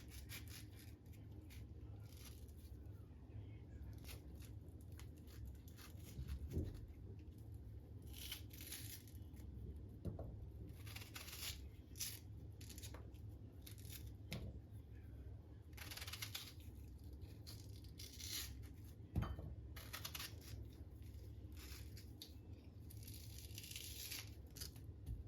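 Quiet handling sounds: intermittent short rustling, tearing-like bursts, with a couple of soft knocks, the sharpest about two-thirds of the way in.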